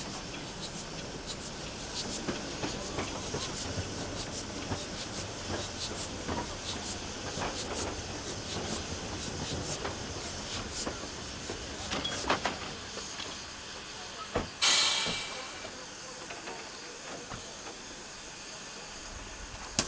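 Narrow-gauge steam locomotive U46.002 running slowly, with a steady rumble and frequent small clicks and clanks of its wheels and running gear. About fifteen seconds in comes a loud hiss of steam lasting about a second.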